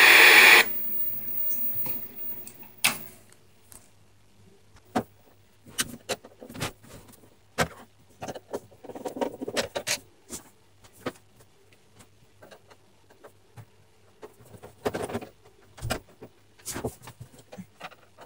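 A brief loud hiss of static from a CRT television's speaker as its channel button is pressed, then scattered clicks, taps and rubbing as hands handle the set's plastic rear cover.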